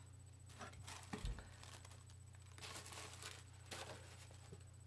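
Near silence: room tone with a steady low electrical hum, a soft knock about a second in and a few faint rustles of small items being handled.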